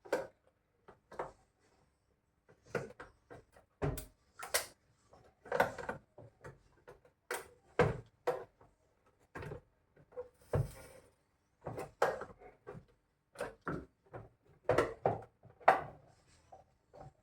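Irregular clicks, taps and knocks of hard parts and tools being handled, several a second at the busiest, some sharp and loud.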